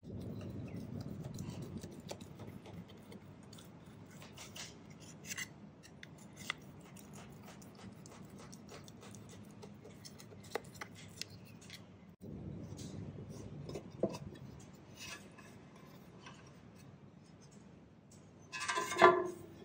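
Thin knife blade scraping and clicking along the inside walls of a square aluminium cake pan, loosening a steamed taro cake from the metal. Near the end a much louder metallic clatter with a short ring as the pan is tipped and the cake turned out.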